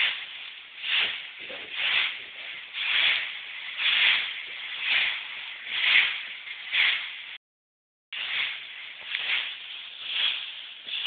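Rake dragging through a layer of dry fallen leaves, a rustling scrape about once a second, stroke after stroke. The sound cuts out completely for under a second about two-thirds of the way through.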